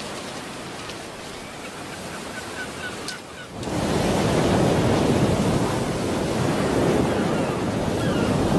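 Sea surf washing on a beach: a softer wash of waves, then a wave breaks about three and a half seconds in and the surf stays loud.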